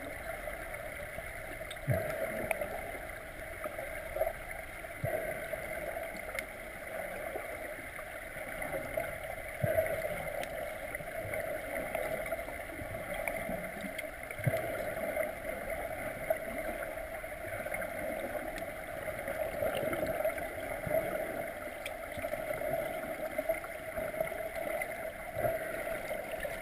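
Underwater pool ambience picked up by a submerged camera: a steady muffled noise with scattered dull knocks.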